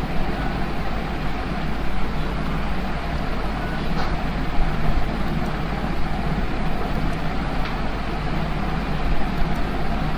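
Steady background noise with a low hum, nearly as loud as the speech around it, and a few faint clicks.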